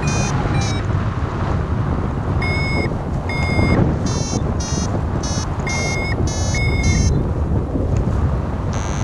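Paragliding variometer beeping in quick runs of short tones, the climb signal that the glider is rising in a thermal, over steady wind rush on the microphone. The beeps come thickest in the middle and stop about two seconds before the end.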